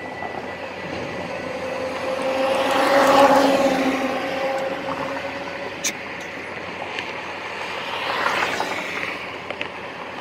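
Road traffic passing through the intersection: one vehicle swells past about three seconds in and another near eight seconds, over a steady hum.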